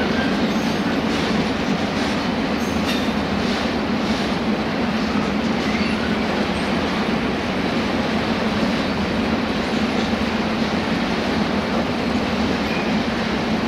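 Freight train of loaded double-deck car-carrier wagons rolling past at a steady speed: a continuous even rumble of wheels on rail, with a few faint clicks in the first half.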